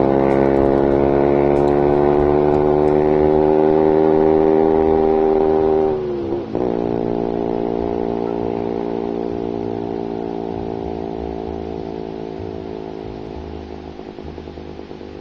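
Motorcycle engine pulling away under acceleration, its note rising steadily, then dropping sharply at a gear change about six seconds in; after the shift the note holds steady and fades as the bike rides off into the distance.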